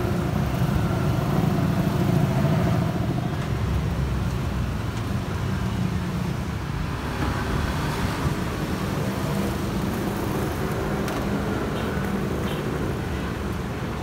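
Road traffic going by: a steady low rumble of passing vehicles, a little louder in the first few seconds.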